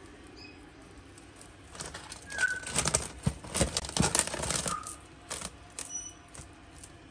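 Frilled lizard lunging at a cockroach held in plastic feeding tongs against the terrarium wall: a burst of dry scratching, scrabbling and quick clicks lasting about three seconds, with a few faint short chirps around it.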